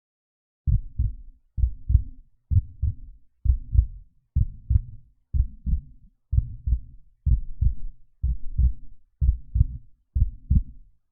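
Heartbeat sound effect: a slow double thump, lub-dub, repeating about once a second, eleven beats in all.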